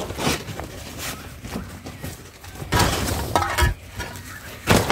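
Paper and plastic rubbish bags rustling and shifting in a bin as bottles and cans are rummaged through, with clinks of the containers knocking together. It is louder in a few spells, most strongly just after the middle and again near the end.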